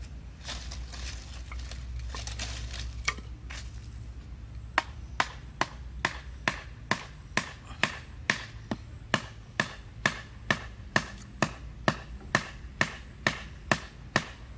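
A thin wooden stake being knocked into the ground with a thick wooden stick: sharp, even knocks about two a second, starting about five seconds in after some rustling and footsteps.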